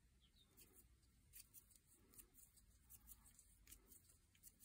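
Near silence with a few faint, soft ticks and rustles of cotton thread and a tatting shuttle being handled as stitches are made.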